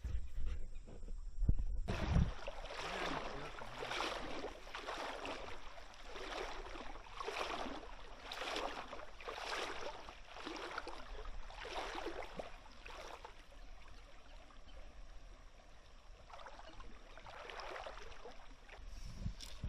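Paddle strokes in shallow creek water: a steady rhythm of swishing splashes about once a second, starting about two seconds in and growing weaker toward the end. A few low thumps come before the strokes begin.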